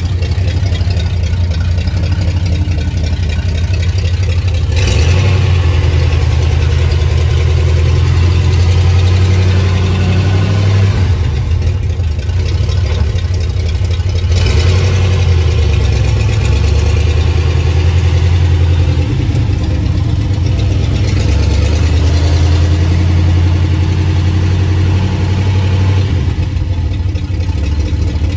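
Freshly rebuilt Ford 360 FE V8 running in a Dentside pickup, its pitch rising and falling. A brighter rush of noise comes in about five seconds in and again around fourteen seconds, with quieter stretches in between.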